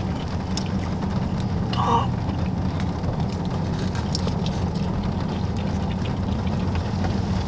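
Steady low hum inside a parked car's cabin, with faint chewing and small clicks from handling food.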